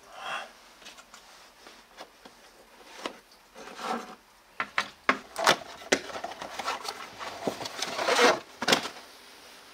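Hand work with tools and parts under a car bonnet: a run of knocks, clicks and scraping rubs, growing busier in the second half.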